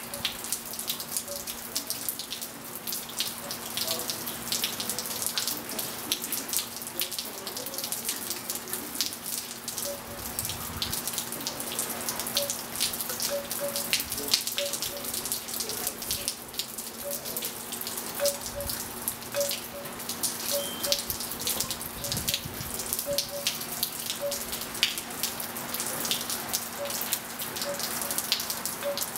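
Steady rain pattering and dripping onto a pool and wet patio tiles, a dense run of small drops. Short pitched plinks come now and then, over a low steady hum.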